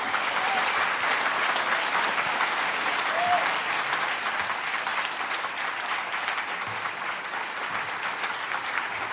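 Audience applauding steadily, the clapping easing slightly toward the end.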